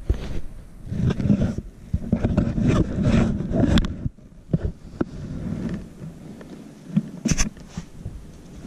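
Rustling and scraping of clothing and a handheld phone being moved close to the microphone, in uneven spells, with a few sharp knocks.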